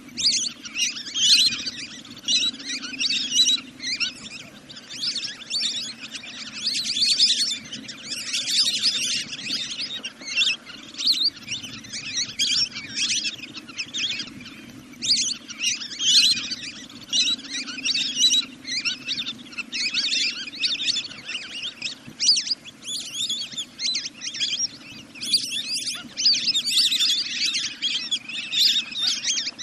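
Recorded calls of the bird the title names 'นกเป็ด' (duck-bird), used as a lure call to bring birds down at night: a dense, continuous run of high chirping calls in clusters of about a second, with a faint steady low hum underneath.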